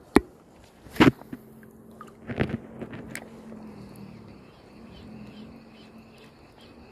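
Ryobi HPX 1000 spinning reel being cranked to retrieve a lure, with a faint, even ticking about three times a second from the turning reel. A few sharp knocks of rod and reel handling come in the first two seconds.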